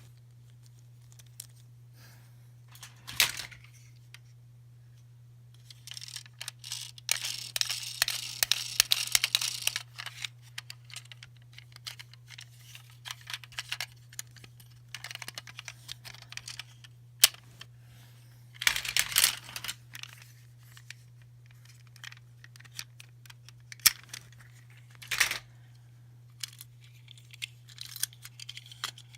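Toy packaging being handled: spells of crinkling and tearing with scattered sharp clicks of small plastic toys, over a steady low hum.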